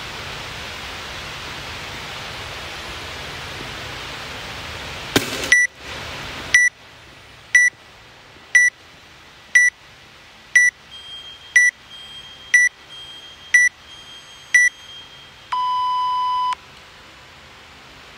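Workout countdown timer: ten short high beeps one second apart, then one longer, lower beep of about a second that marks the start. Before the beeps a steady hiss, which ends with a click about five seconds in.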